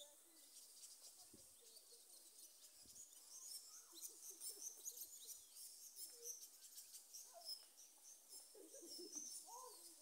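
Near silence with faint, scattered high-pitched chirps of small birds in the background.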